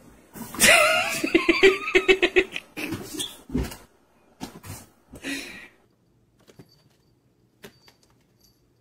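A person crying out and then laughing in quick bursts, followed by a few faint clicks near the end.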